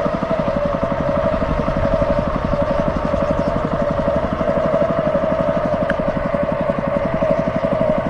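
A small engine running steadily, a rapid even chugging under a constant hum.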